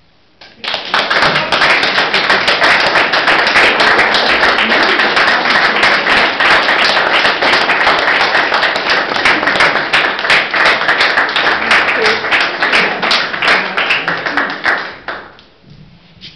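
Small audience applauding, starting abruptly about half a second in and dying away near the end.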